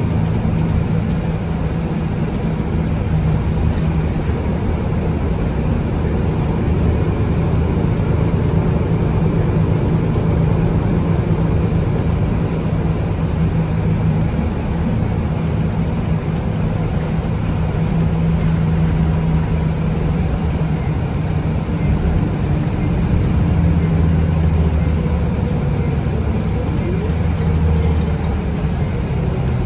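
Inside a BCI Citirider city bus on the move: its Cummins ISB 6.7 six-cylinder diesel engine runs with a steady low drone under tyre and road noise. The drone swells and eases slightly now and then.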